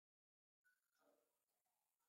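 Near silence, with only a few very faint sounds after the first half second.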